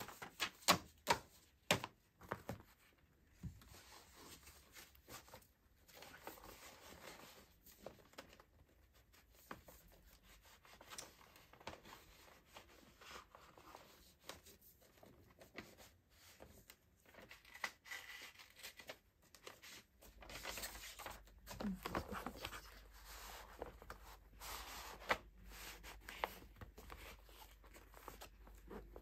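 A few sharp clicks and knocks at the start, then faint, irregular rustling and small handling noises in a small room.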